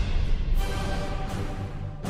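Background music, a softer passage with sustained low notes.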